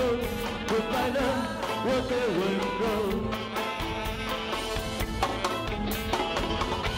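Live band playing a Chinese pop song on keyboard, saxophone and drums, with a wavering melody line in the first few seconds and a steady drum beat.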